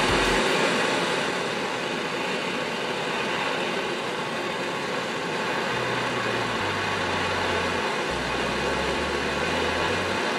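Small handheld gas torch burning with a steady hiss, its blue flame heating a brass threaded insert so it melts into an HDPE plastic plate.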